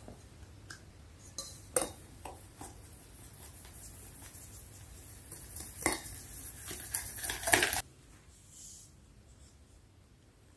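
A few light clinks against a stainless steel mixing bowl, then a wire whisk scraping and rattling around the bowl through a thick flour and powdered-sugar mixture for about two seconds, stopping abruptly.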